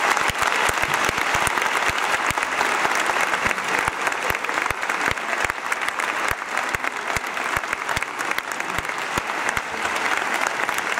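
Audience applauding: many hands clapping at once in a dense, unbroken run.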